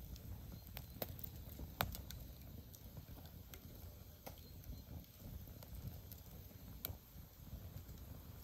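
Open wood fire crackling under roasting bacon: a few scattered sharp pops over a low steady rumble.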